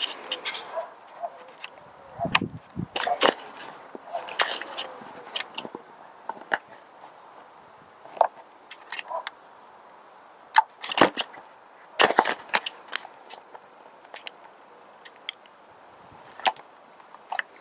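Scattered clicks, taps and knocks of handling close to the microphone, with two louder knocks a little past the middle.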